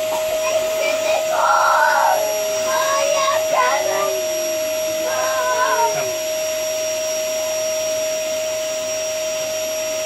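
Vacuum cleaner running steadily with a constant whine, its hose nozzle used on a child's hair. Children's high voices sound over it between about one and six seconds in.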